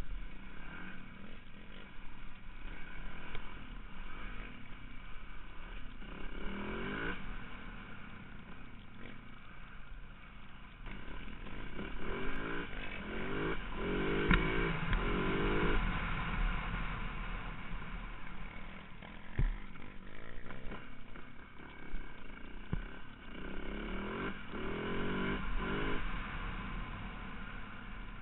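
Four-stroke single-cylinder enduro motorcycle heard from on board while riding, the engine revving up and dropping back again and again with throttle and gear changes, loudest about halfway through.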